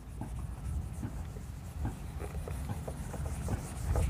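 A handheld whiteboard duster rubbed over a whiteboard to wipe off marker writing, a steady rubbing broken by many short scrapes.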